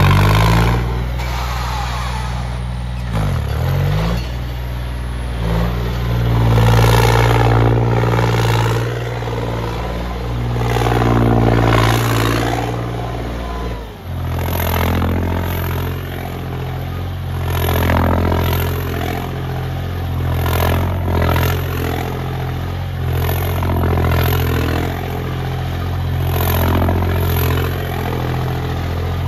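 Modified tractor's diesel engine revving hard and dropping back again and again as the tractor rears up onto its rear wheels and spins in a wheelie stunt.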